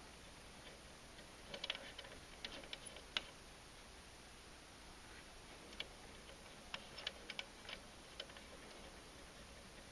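Faint, irregular small clicks and taps from the parts of a Bunnell Gold Bug semi-automatic telegraph key being handled while a wire is fastened to its terminal. There are two short flurries, one about a second and a half in and another about six seconds in.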